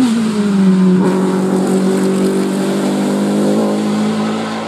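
Hill-climb racing car's engine passing at high revs: its note drops at the start as it goes by, then holds a steady high pitch and eases off slightly toward the end.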